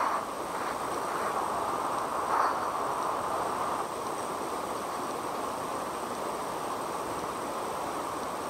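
Steady outdoor hiss with a faint, constant high-pitched whine over it, and a soft bump about two and a half seconds in.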